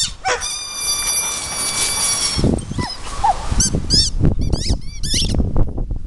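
Dog whining excitedly: one long, high-pitched whine held for about two seconds, then a quick run of short yelping whines a little later. Rustling and thumps sit underneath from about halfway through.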